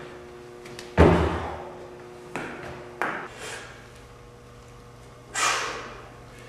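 A heavy, echoing thump about a second in as a jumper lands on a plyometric box, followed by two lighter knocks. Near the end comes a short, sharp breathy hiss, a forceful exhale as a barbell thruster is driven overhead.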